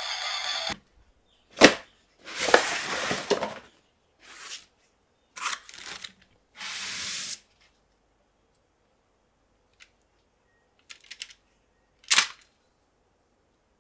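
Toy unboxing: a sharp snap, then clear plastic packaging rustling and crinkling in four bursts as the toy lance is slid out of its bag and cardboard tray. After a quiet stretch come a few light clicks of hard plastic toy parts, and one louder click near the end. The intro music cuts off in the first second.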